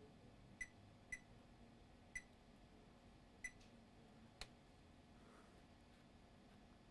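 Multimeter continuity beeper giving four brief chirps in the first three and a half seconds as the probe is touched to capacitors in turn, testing them for a short. Each chirp cuts off at once rather than holding. A single faint click comes a little after four seconds.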